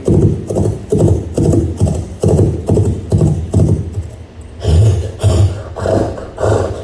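Foley sound effect of clip-clop steps, about two knocks a second at an even pace. A little past halfway, the knocks turn deeper and sharper.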